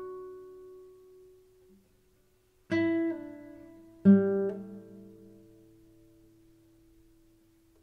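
Background music on guitar: plucked notes and chords that ring out and fade, with a short pause about two seconds in before two more chords are struck.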